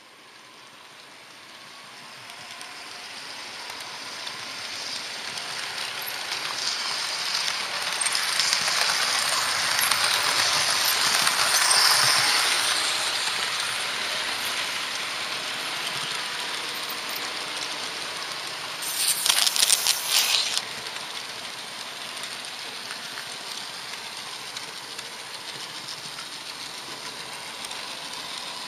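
Train running on rails: a steady hiss of rolling wheels that fades in over the first few seconds, is loudest around ten to twelve seconds in, then settles, with a short burst of rapid clattering about nineteen seconds in.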